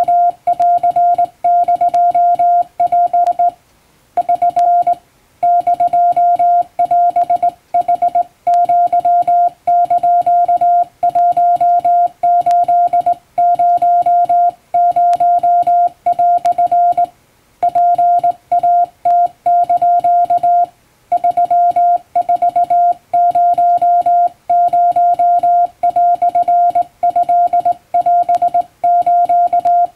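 Morse code tone near 700 Hz, keyed by hand on a straight key, sending Japanese Wabun code as short and long beeps with brief pauses between groups.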